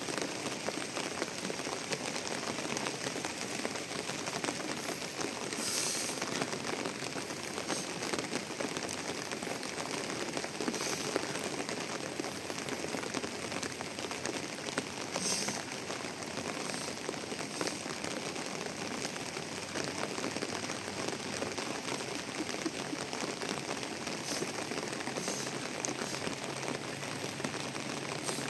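Steady rain falling on a surface, an even hiss with now and then a brief sharper patter.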